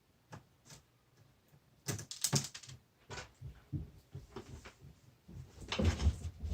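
Hands handling laptop parts and tools, making small plastic clicks and light clatter. The clatter comes in two busier bursts, about two seconds in and near the end.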